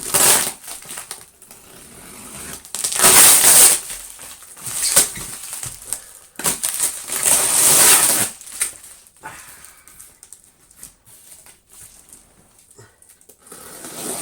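A cardboard box being pulled and worked open by hand: loud scraping and crunching bursts of cardboard, the longest about three seconds in and again about seven to eight seconds in, followed by quieter rustles and small taps.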